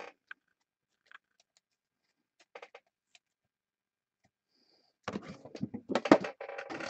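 A few faint clicks, then from about five seconds in a busy clatter and scraping of card boxes being handled and moved on a tabletop.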